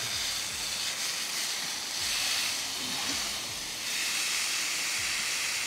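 Tri-tip sizzling as it sears on a Ninja Woodfire Grill's grill grate preheated on high: a steady hiss.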